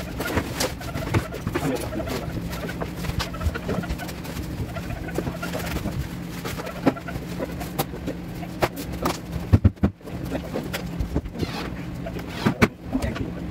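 Scattered knocks and taps from workers handling and fitting wardrobe cabinet panels, over a steady low hum. A cluster of louder knocks comes about two-thirds of the way in, and another near the end.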